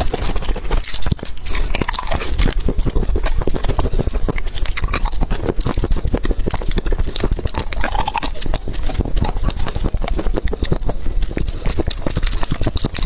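Close-miked eating sounds: fast, continuous chewing and mouth clicks, many quick smacks a second, with no pauses.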